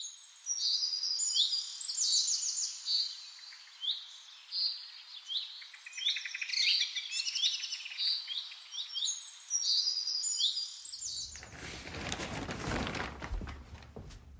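Several songbirds chirping and singing, short repeated calls overlapping one another. About eleven seconds in they give way abruptly to the crinkling rustle of a tarp being shaken out and handled.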